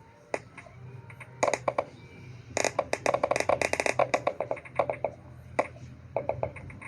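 Rapid clusters of sharp clicks and taps, densest in the middle, over a low steady hum.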